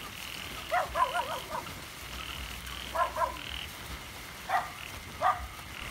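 Frogs calling: short bursts of quick, rising croaks, a run of about five about a second in, a pair near three seconds, and single calls near four and a half and five seconds. A higher-pitched chorus comes and goes steadily behind them.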